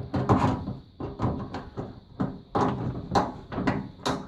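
Irregular knocks, clunks and scraping as a stubborn washing-machine drain hose is worked back onto its fitting, several a second, with a faint steady high tone underneath.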